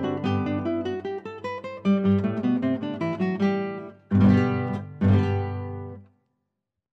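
Classical guitar music: a run of plucked notes, then two closing chords about four and five seconds in. They ring briefly and stop about six seconds in.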